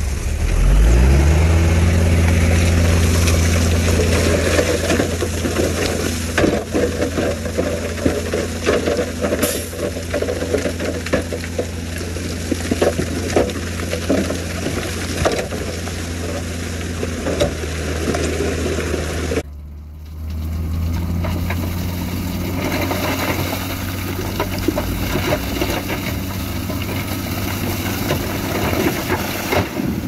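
Shacman dump truck's diesel engine revving up and running hard as the tipper raises its bed, with the load of rock clattering and rumbling out of the bed for many seconds. The sound drops out abruptly for a moment about two-thirds through, then the engine runs on steadily.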